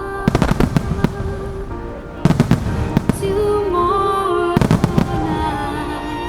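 Music starmine fireworks finale: three volleys of rapid bursting shells cracking in quick succession, about two seconds apart, over music playing from loudspeakers.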